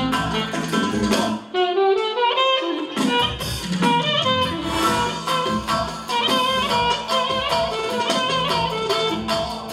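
Dance music with a steady beat and a wavering lead melody. About one and a half seconds in, the bass and beat drop out briefly while the melody climbs, then return.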